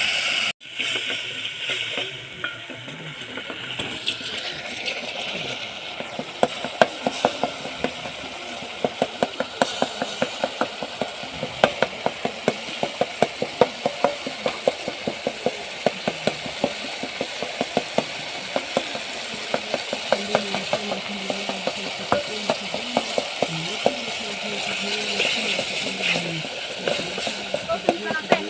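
Food sizzling as it fries in a pan on the stove, with a utensil clicking and scraping against the pan about three times a second.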